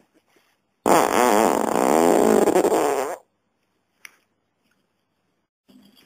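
A long, loud human fart lasting a little over two seconds, its pitch wavering up and down throughout.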